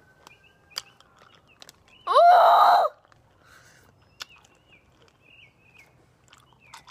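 A young woman gives a short, loud strained cry about two seconds in, rising in pitch and then held for under a second, reacting to the extreme sourness of the Warheads candy in her mouth. Faint bird chirps come and go behind it, with a couple of small clicks.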